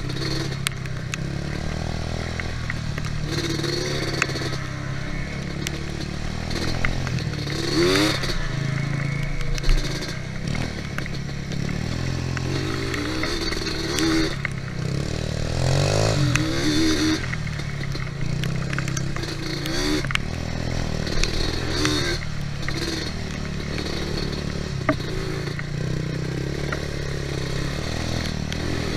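ATV engine running, rising and falling in pitch again and again as the throttle is worked, with scattered knocks and rattles; the sharpest knock comes about ten seconds in.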